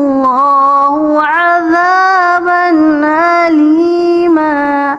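A woman's voice reciting the Quran in the melodic tilawah style, one long unbroken phrase of held notes that step up and down with fine ornaments. It breaks off suddenly at the end.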